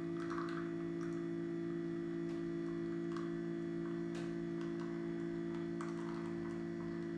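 Subminimal NanoFoamer PRO handheld milk frother motor running steadily, a constant hum of several low tones, with faint small clicks and splashes from the liquid being frothed.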